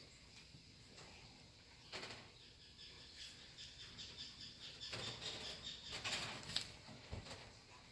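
Faint rustling and fluttering of a feather wand toy being waved, with kittens' paws scrabbling on fabric sofa upholstery: a quick run of soft patters from about two seconds in until near the end.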